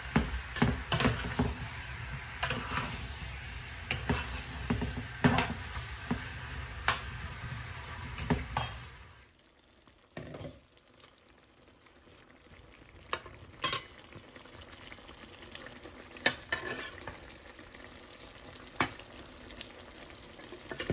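Zucchini sautéing in a frying pan with tomato and onion, sizzling, with a spoon scraping and knocking against the pan as it is stirred. About nine seconds in the sizzle drops away suddenly to a much fainter hiss with only a few clicks.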